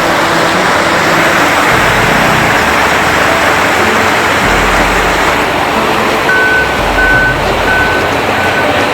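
Loud steady rushing noise. About six seconds in, a high electronic beep starts repeating about one and a half times a second, like a vehicle's reversing alarm.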